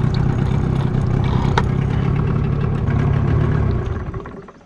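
A motor running steadily with a low hum, fading out near the end.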